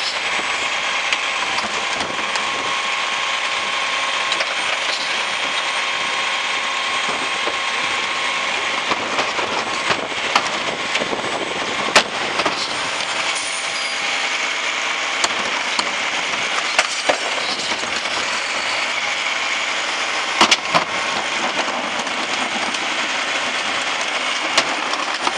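Garbage truck with a side-loading cart tipper running steadily while recyclables and carts are dumped into the hopper, with a few sharp bangs and clatters, the loudest about twenty seconds in.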